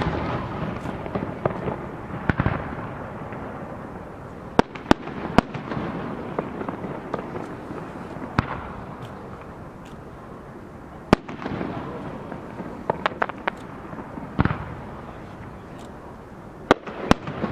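Aerial fireworks shells bursting: about a dozen sharp bangs at uneven intervals, some in quick pairs and a cluster of several, with crackling and a steady wash of noise between them.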